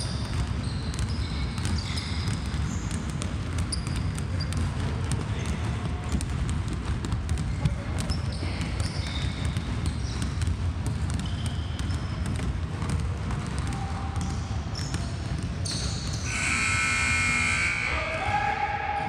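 Basketballs bouncing repeatedly on a hardwood gym floor during dribbling and passing drills, with short high sneaker squeaks and voices echoing in the gym. Near the end a louder, drawn-out pitched sound lasts about two seconds.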